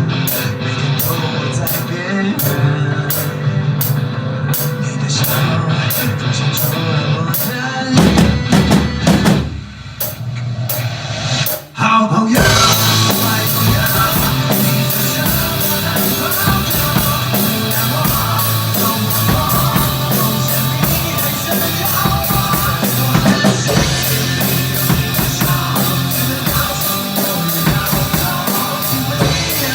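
Drum kit played along to a rock backing track with singing. The music thins out and briefly drops away about ten seconds in, then comes back in fuller and denser about twelve seconds in.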